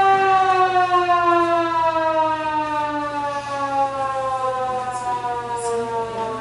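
Air raid siren winding down, its single wailing tone falling slowly and steadily in pitch as it fades.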